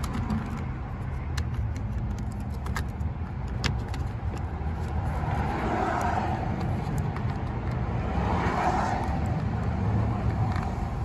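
Steady low vehicle rumble, with a few light, sharp clicks scattered through and two soft swells of noise about six and nine seconds in.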